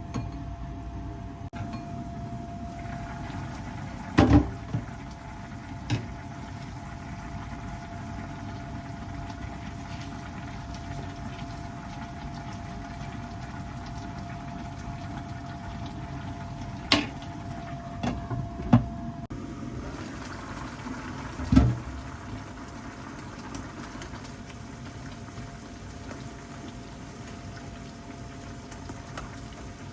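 Kitchen cooking sounds: a steady hiss with a faint steady hum underneath, broken by a few sharp knocks and clinks of utensils or cookware, two close together about four seconds in and a cluster around seventeen to twenty-two seconds.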